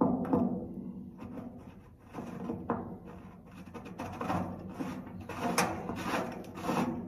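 Repeated metal scraping and knocking as a mechanical float gauge is worked into the top bung of a steel heating oil tank, each knock followed by a short ringing from the tank.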